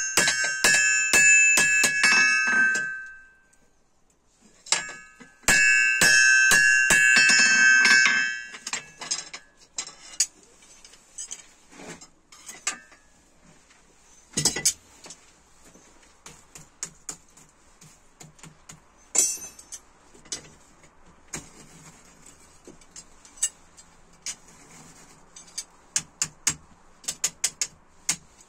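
Hand hammer striking red-hot leaf-spring steel on an anvil in quick blows, each ringing with a bright bell-like tone, in two runs: through the first three seconds and again from about five to eight seconds in. After that, only scattered light taps and clinks while the blade is reheated in the coal forge.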